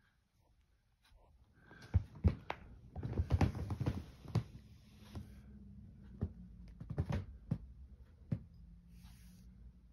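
Soft knocks and rustling, a quick cluster from about two to four and a half seconds in, then a few scattered knocks, as a cat moves about on bedding close to the microphone.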